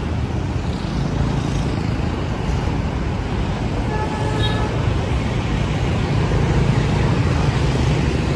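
Steady road traffic noise from cars, trucks and motorbikes on a busy multi-lane avenue, a continuous low rumble of engines and tyres. A short beep sounds about four seconds in.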